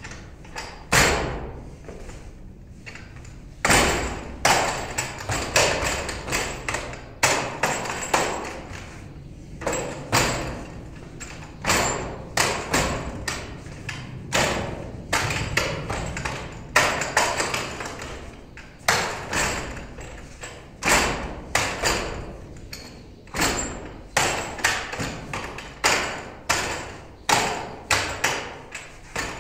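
Forearms and palms striking the wooden arms and trunk of a Wing Tsun wooden dummy (mook yan jong): an irregular run of sharp wooden knocks and thuds, often two or three in quick succession, each with a short ringing decay.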